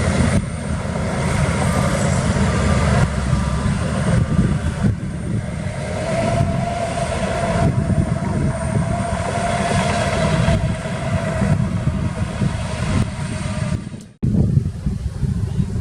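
Heavy earthmoving machinery with its diesel engine running and working, a steady low rumble with a held whine through the middle part. About fourteen seconds in the sound breaks off for a moment and comes back.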